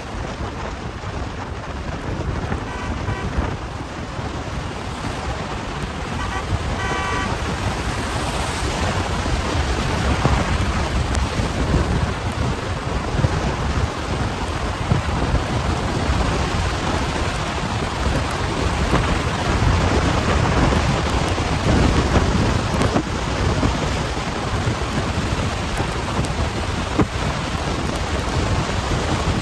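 Steady hiss and rumble of a car driving on a rain-wet road, with tyre spray and wind noise, growing a little louder about ten seconds in.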